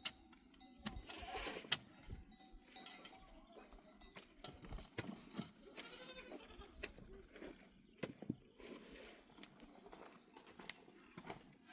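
Bleating from a flock, several short calls, among scattered sharp clicks and knocks.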